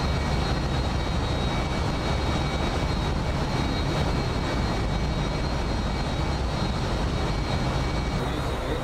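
Steady rumble and hiss of a warship's machinery and the wind and sea on deck while underway, with a faint high steady whine over it.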